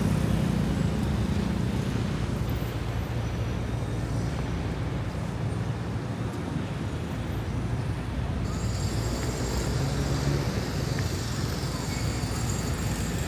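City street traffic: a steady rumble of car and motorcycle engines. A higher hiss joins about two-thirds of the way through.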